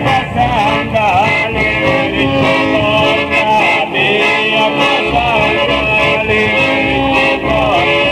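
Southern Italian folk song: a voice singing over plucked guitar accompaniment.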